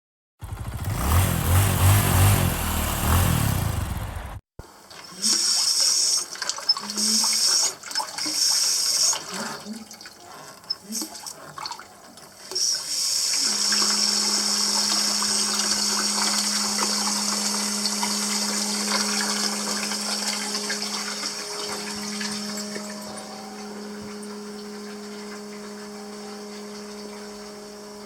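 Water running through plumbing, first in short spurts, then flowing steadily; about halfway through a steady low hum sets in with the flow and holds. The hum is the abnormal noise in the water system.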